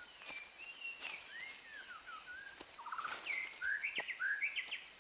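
Rainforest birds calling: several whistled, gliding calls, then a run of short, harsh repeated notes about three seconds in, over a steady high insect drone. A few faint ticks sound in between.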